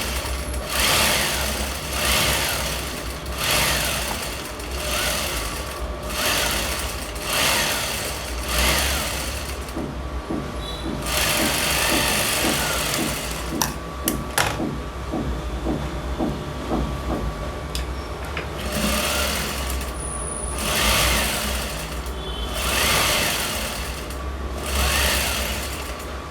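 Sewing machine stitching fabric, running in repeated short bursts that start and stop over a steady low motor hum.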